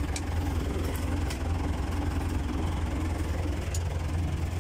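Tractor engine running steadily at idle, heard from inside the cab, with a few faint clicks.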